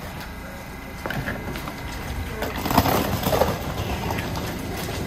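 Low, steady rumble of a subway train in the station, with a brief louder sound about three seconds in.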